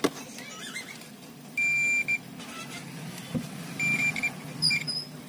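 UNI-T digital multimeter's continuity buzzer giving a high-pitched beep, about half a second long, then two short beeps and a blip a couple of seconds later, as the probes touch points on the phone's circuit board. Each beep marks a conducting path between the probes, the check used to find a short.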